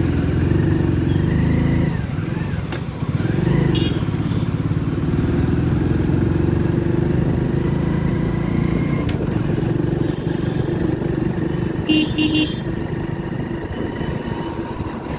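Motorcycle engine running steadily while riding through city traffic, with a brief cluster of short horn toots about twelve seconds in.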